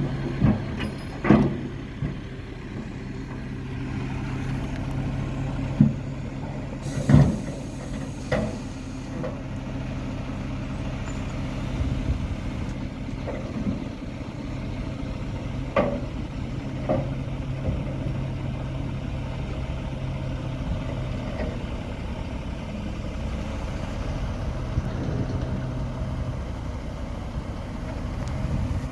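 Heavy diesel engine of construction machinery running steadily, with several sharp clanks and knocks scattered through.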